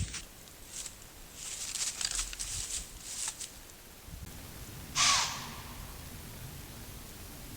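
A deer blowing: one loud, harsh, breathy snort about five seconds in, the deer's alarm call, after some light rustling and small clicks of movement.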